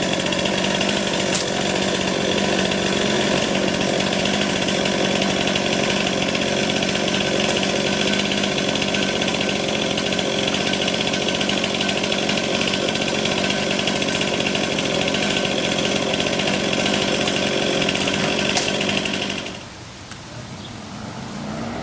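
Chainsaw running steadily at constant high speed, cutting through an ash tree, then cutting off abruptly near the end.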